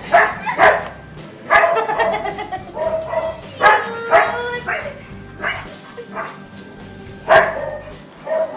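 Five-week-old Labrador puppies play-barking and yapping in short, high bursts, several times over.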